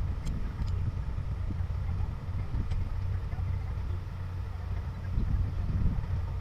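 Excavator's diesel engine running steadily, a low rumble, with a few light clicks.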